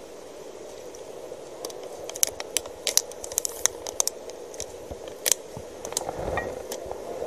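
A clear plastic water bottle crinkling and crackling in a hand: a quick run of sharp crackles, over a steady hum. Near the end comes a duller rustle and thump of handling.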